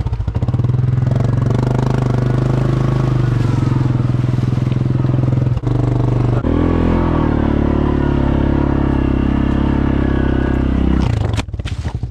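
Yamaha Grizzly ATV engine running under load as it is ridden through mud holes, its pitch dropping about six and a half seconds in. Near the end a few sharp knocks come and the engine falls to a lower, pulsing idle.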